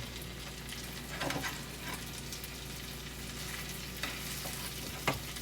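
Food frying in butter in a hot pan, a steady sizzle, with two light utensil knocks, about a second in and near the end.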